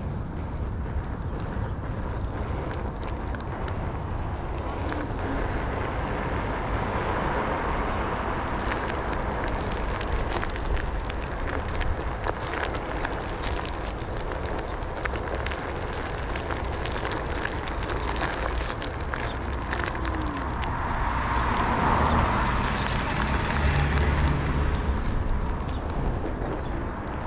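Outdoor noise: a steady low rumble with wind on the microphone and many scattered small clicks, swelling louder for a few seconds about three-quarters of the way through.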